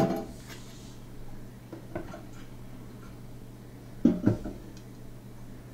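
Kitchen handling knocks on a countertop: a stainless steel container clanks with a short ring right at the start, a faint knock follows about two seconds in, and two knocks close together come about four seconds in as a wooden cutting board is handled.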